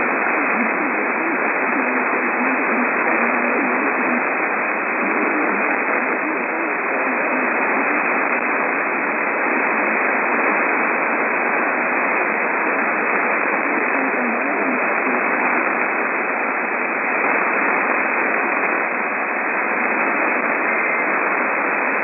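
Static on an AM radio receiver: a steady, muffled hiss with no clear program audio over it.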